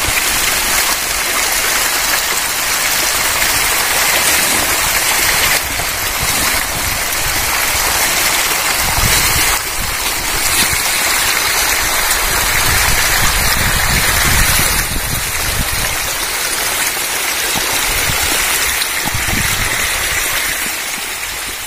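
A dense crowd of hybrid magur catfish splashing and churning the water surface as they feed on floating pellets: a steady, loud rain-like hiss of splashing water that shifts abruptly a few times.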